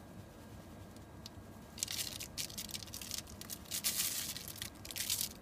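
Roasted flaked almonds tipped and shaken out of a glass bowl into a pot of sauce: a dry rustling and crackling in irregular bursts, starting about two seconds in.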